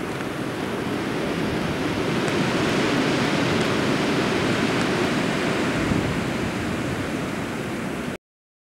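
Wind rushing across the camcorder microphone, a steady noise that swells slightly in the middle, then cuts to dead silence for under a second near the end.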